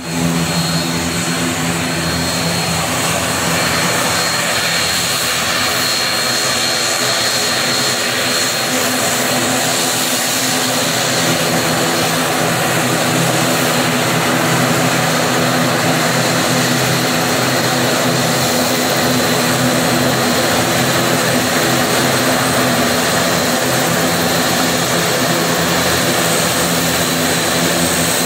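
ATR 72 turboprop airliner's twin engines running on the ground as it taxis: a steady propeller drone with a thin, steady high whine over it.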